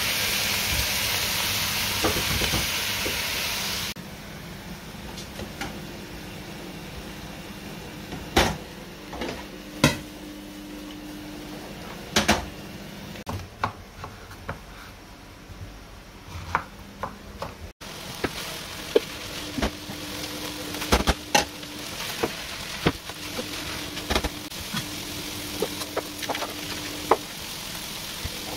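Ground beef sizzling as it fries in a pan, cut off sharply about four seconds in. After that come scattered sharp clicks and knocks of kitchen prep work, a knife on a cutting board, with a faint steady hum that comes and goes.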